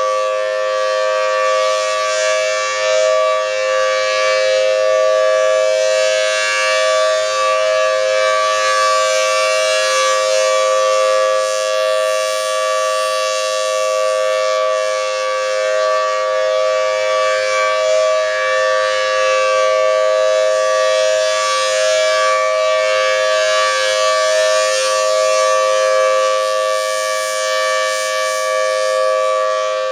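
Federal Signal Thunderbolt 1000T B-Series civil defense siren sounding a loud, steady two-note tone held at full pitch throughout, with only slight wavering in loudness.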